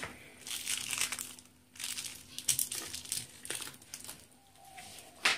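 A long-haired cat eating dry kibble: irregular bouts of crunching and chewing, with one sharp click near the end.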